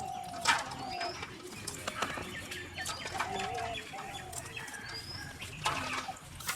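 Birds calling: a series of short, low, held coos mixed with higher, rising chirps, with a few sharp knocks about half a second in and near the end.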